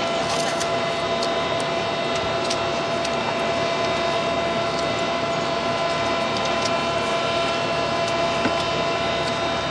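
Steady engine drone of a ship under way, with a few faint clicks.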